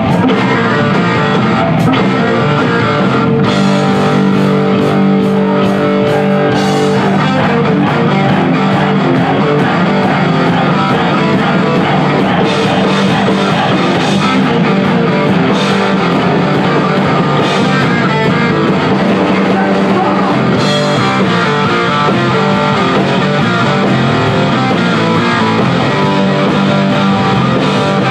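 Heavy metal band playing live at full volume: distorted electric guitars over bass and drums, with crashing cymbals, mostly without vocals.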